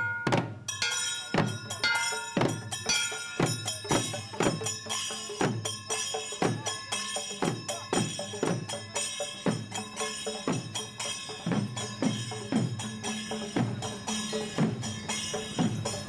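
Temple procession drums struck with sticks in a steady beat of about two strokes a second, each stroke falling in pitch, with small hand cymbals ringing over them.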